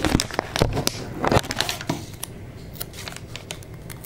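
Paper sticker sheet crinkling and crackling as it is handled and stickers are pressed onto paper, a quick run of sharp crackles in the first two seconds, then only a few faint ones.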